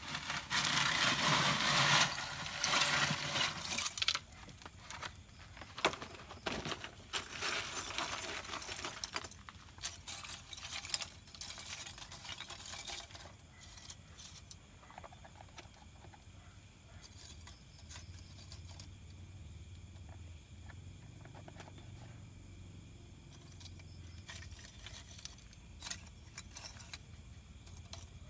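A metal blade scraping and chipping at the dried clay lining of an oven pit, in long rasping stretches through the first half; after that it goes quieter, with a low hum and a few scattered clicks and knocks.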